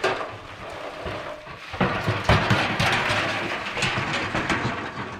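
A rusty steel barrel rolled and shoved over loose wooden floorboards and out of the barn doorway: a rumbling, rattling clatter with knocks, and a heavy thump about two seconds in.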